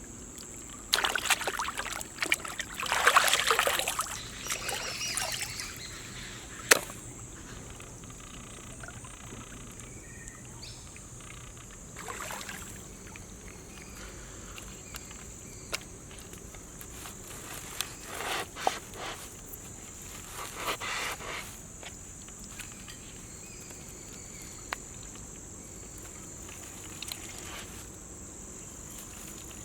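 Bursts of rustling and handling noise with a few sharp knocks, over a steady high insect drone.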